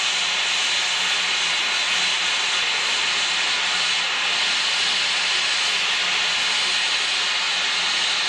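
Steam locomotive No. 90 standing in steam and venting it in a steady, loud hiss.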